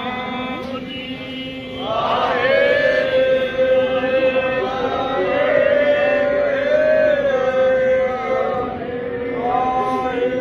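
Sikh devotional chanting: voices chanting over a steady held tone, growing louder about two seconds in.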